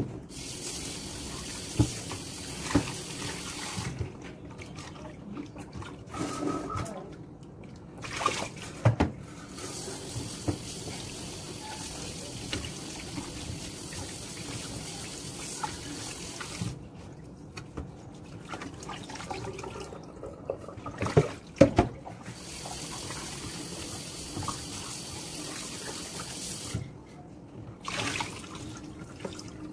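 Kitchen tap running into a stainless steel sink as raw chicken is rinsed by hand. The water stream breaks off and comes back several times. There are a few sharp knocks, the loudest about two-thirds of the way through.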